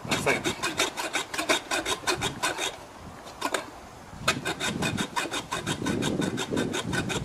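Junior hacksaw cutting through the protruding end of a bolt in quick back-and-forth strokes. The sawing stops for about a second and a half near the middle, then starts again.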